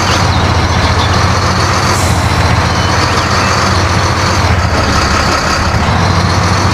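Motor-driven water sprayer, such as a small electric pressure washer, running steadily: a loud, even hiss of spraying water over a constant motor hum, washing mud off a toy truck.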